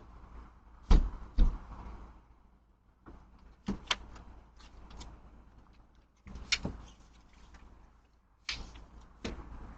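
A series of sharp knocks and clatters, mostly in pairs, the loudest two about a second in, over a faint hiss that cuts in and out.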